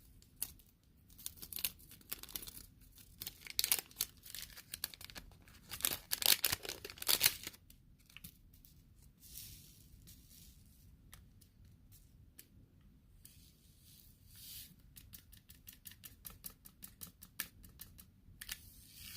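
Seed packets handled close to the microphone, crinkling with sticky, tearing peels in bursts. The loudest burst comes about six to seven seconds in, and a run of quick crackles follows near the end.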